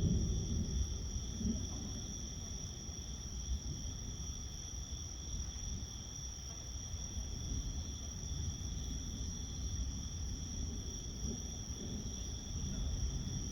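A steady chorus of insects chirring at two high pitches, over a low rumble of distant thunder that is loudest at the start and dies down within the first couple of seconds.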